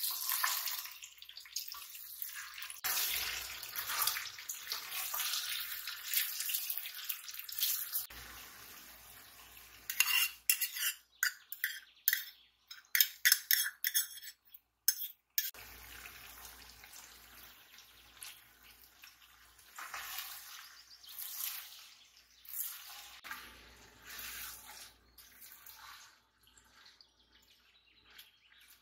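Home kitchen sounds: a utensil stirring and clinking against pots and dishes. About ten seconds in comes a run of quick, sharp knocks lasting some five seconds.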